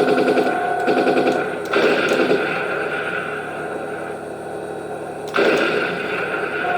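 Henglong T-72 RC tank's sound module playing a rapid machine-gun effect through its small onboard speaker. About a second and a half in, the sound switches to other tank effects, and it changes again near the end.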